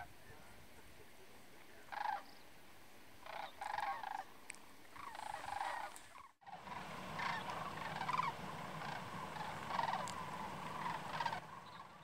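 A flock of sandhill cranes calling in flight: rolling, trilled bugling calls. A few separate calls come first; after a brief dropout a little past halfway, many calls overlap in a steady chorus.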